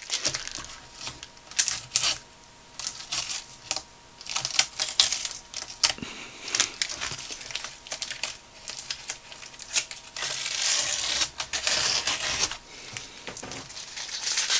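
Masking tape being peeled off the edges of a sheet of watercolour paper: a run of small crackles and tearing sounds, with a longer continuous peel about ten seconds in.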